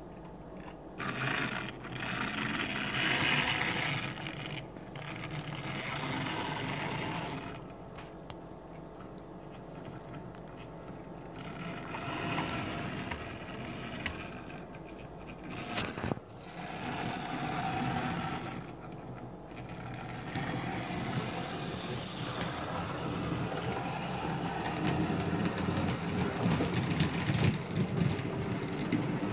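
HO scale model trains running along the track: the small electric motors and wheels whirring and scraping, getting louder and quieter as cars pass close, with a sharp click about halfway through.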